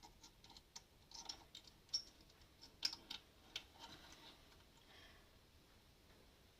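Faint, irregular small clicks and taps of an EL84 valve and its metal retaining cage being handled and refitted into the amplifier's valve socket, the sharpest clicks about two and three seconds in.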